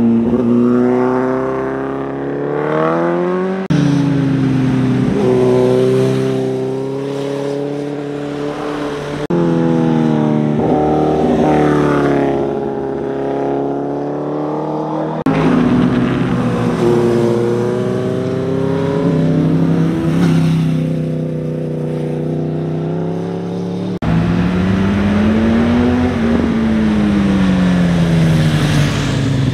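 Motorcycle engines accelerating through a bend, their pitch rising and falling with throttle and gear changes, in several short passes that cut abruptly from one to the next. Near the end one engine climbs steadily in pitch, then drops away.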